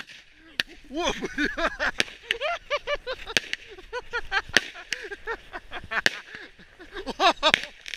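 A Chinese consumer firework going off: a rapid, irregular string of sharp bangs and crackles mixed with many short pitched squeals, loudest about seven seconds in.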